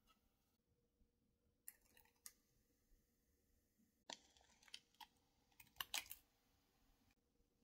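Scissors snipping open a plastic powder sachet: a run of faint, crisp cuts and crinkles over about two seconds in the second half, loudest near the end, after a few faint clicks earlier on.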